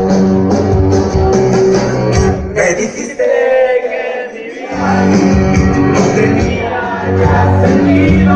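Loud dance music with singing played over a sonidero sound system. About three seconds in the bass and drums drop out for a short break, leaving the higher parts, then come back in with the full beat.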